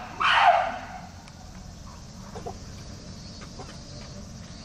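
A chimpanzee calling: one loud, harsh bark about half a second long just after the start, with the tail of an earlier call at the very start.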